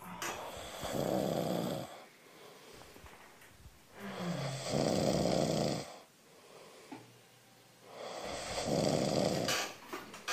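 A man snoring: three long snores, each a second or two, about four seconds apart.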